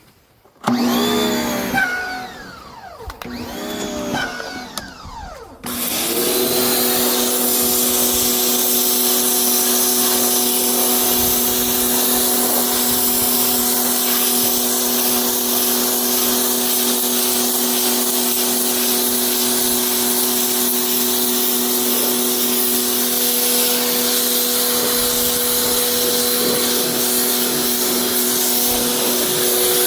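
Cordless battery-powered pressure washer spraying water onto a car's seat fabric. Its motor whines up and down twice in the first few seconds, then runs steadily under the hiss of the spray from about six seconds in.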